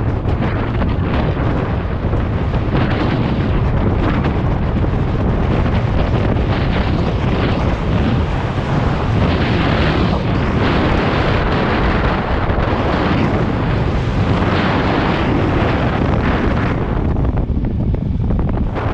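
Wind buffeting an action camera's microphone: a loud, dense rush, heaviest in the low range, that swells and eases in gusts and drops back briefly near the end.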